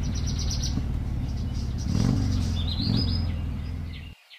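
Motorcycle engine running as the bike approaches, with birds chirping over it. The sound cuts off abruptly about four seconds in.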